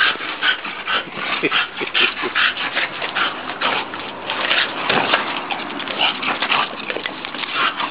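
Bulldog huffing rapidly in short noisy breaths while playing with a ball, with a few brief whines.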